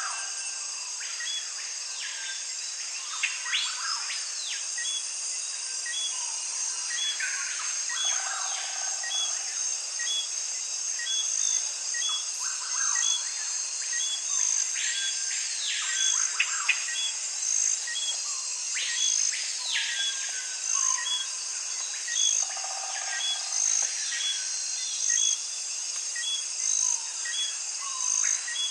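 Nature ambience of birds and insects: a steady high insect drone with a short chirp repeating evenly throughout, and assorted bird calls rising and falling over it.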